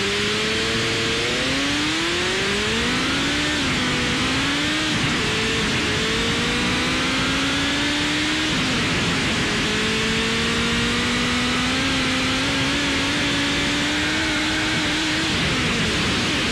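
Car engine accelerating, its pitch climbing slowly and dropping back, as at gear changes, about three and a half and eight and a half seconds in. It sits under a steady, loud hiss of static.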